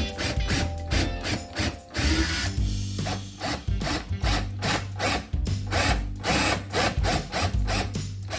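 Power drill running in short bursts, mixed with background music that has a steady beat.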